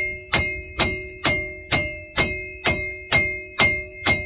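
Steady hammer blows on the steel wheel hub bearing of a 2003 Chevy Suburban, nine strikes at about two a second. Each strike rings with a metallic tone as he tries to knock out the rust-stuck hub.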